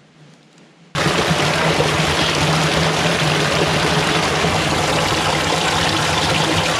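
Small stream cascading over rocks, a steady rush of water heard up close; it comes in suddenly about a second in.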